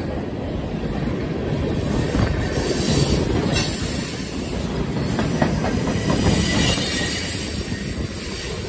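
Freight cars of a CSX freight train rolling past at close range: a steady rumble of steel wheels on rail, with a few brief knocks.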